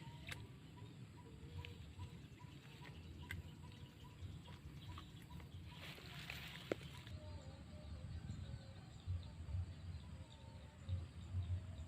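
Outdoor ambience: faint bird chirps and calls over a low, uneven rumble, with a few light clicks.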